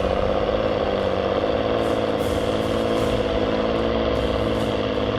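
Heavy-equipment diesel engine, likely an excavator's, running steadily at a constant pitch.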